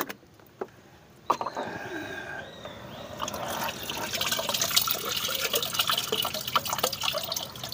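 Liquid fertilizer splashing, dripping and trickling as soaked plant waste is lifted out of the container and the liquid runs back in, starting about a second in with some bubbling and then going on steadily.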